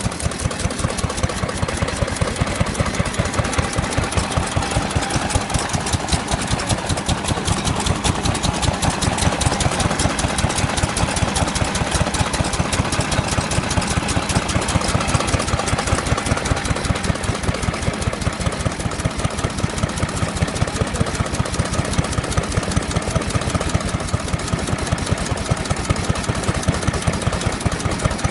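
Early-Showa Kubota Type F single-cylinder stationary engine running steadily, firing in an even beat of about three strokes a second.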